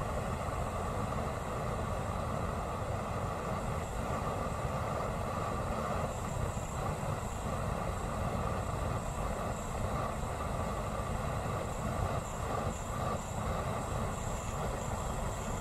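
Harbor Freight propane weed burner rigged as a flamethrower, burning steadily on liquid propane drawn from an upturned tank.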